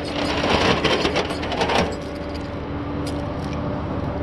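Metal tie-down hook and strap rattling and clinking as they are handled for about two seconds, over a steady mechanical hum that carries on alone afterwards.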